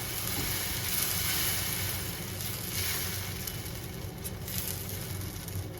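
Dosa batter of wheat flour and semolina sizzling on a hot pan just after a ladleful is poured, a steady hiss that eases a little in the second half.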